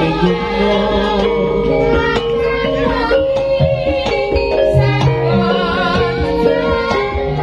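Female sindhen voices singing a Javanese langgam together, with wavering vibrato, over a karawitan gamelan ensemble of struck metallophones and gongs.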